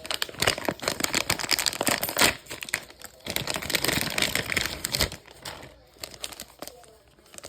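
Plastic wrapping of a hockey card repack being torn open and crinkled, a dense crackle of handling for about five seconds that then thins out to a few light clicks and rustles as the contents come out.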